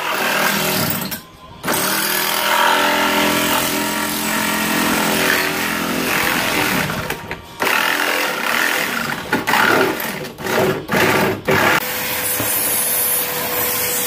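Cordless power saw cutting a hole through a chest freezer's inner wall, running in long stretches with a few brief stops. Near the end a vacuum runs steadily with a constant hum.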